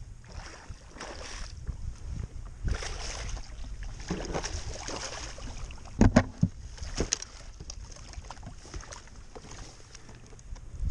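Wind buffeting the microphone and water splashing as a striped bass is scooped into a landing net beside a kayak, with a few sharp knocks about six seconds in.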